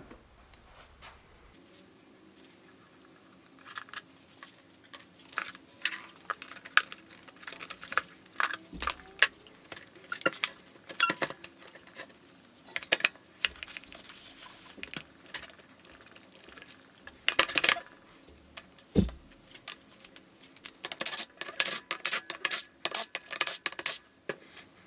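Metal hand tools and small engine parts clinking and knocking during a small-engine teardown: scattered sharp clicks and clanks, with a quick run of rapid clicks near the end.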